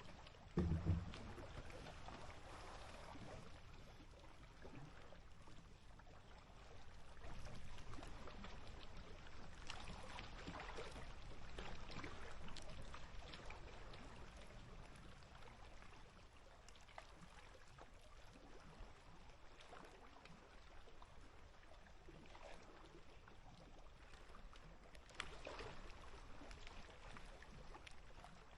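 Small waves lapping and popping against the lake's edge, with scattered little splashes that come more often for a few seconds in the middle and again near the end. A single louder low thump about a second in.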